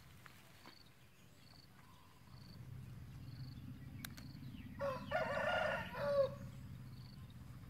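A rooster crowing once, about five seconds in: a single crow of about a second and a half that drops in pitch at the end.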